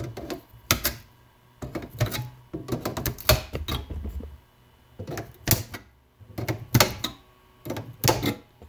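Diagonal cutters (dykes) snipping through the metal leads that join the battery cells to the BMS board: about six sharp snips, roughly one every second and a bit, with light rattling of the pack in between.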